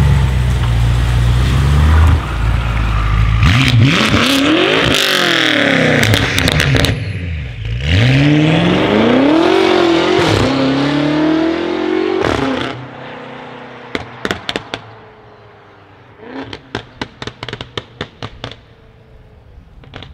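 BMW X6 M's twin-turbo V8 rumbling, then accelerating hard away, the pitch climbing and dropping back at each gear change. As it fades down the road, its exhaust gives a quick run of sharp crackles.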